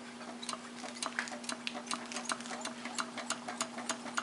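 Gamma Stirling engine's crankshaft and connecting rods turning, with a rhythmic metallic clicking that settles into about five clicks a second, over a steady low hum.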